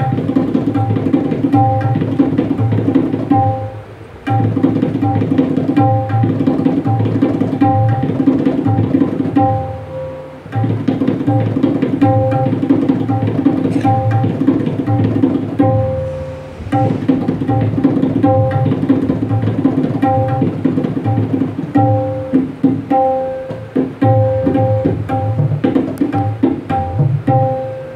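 Tabla solo in teentaal, the 16-beat cycle: fast runs of strokes, the tuned right-hand drum (dayan) ringing at a steady pitch over the deep strokes of the left-hand bayan. There are short breaks between phrases about four, ten and sixteen seconds in.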